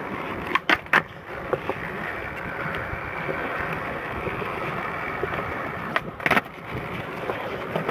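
Skateboard wheels rolling steadily on smooth concrete, with sharp wooden clacks of the board snapping and landing about a second in and again about six seconds in.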